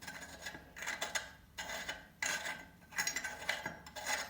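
Metal cartridge retaining nut of a bathroom mixer tap being screwed by hand onto the threaded tap body: a run of about five short scrapes, roughly one a second, as the threads turn.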